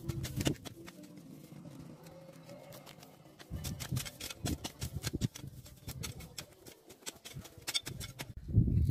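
Garden hoe chopping and scraping into dry, weedy ground: a busy run of short sharp strikes and scrapes, with duller thuds about three and a half seconds in and near the end.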